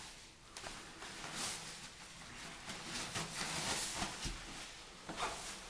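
Rustling and crinkling of a disposable protective coverall as its hood is pulled up over the head, with a few soft knocks.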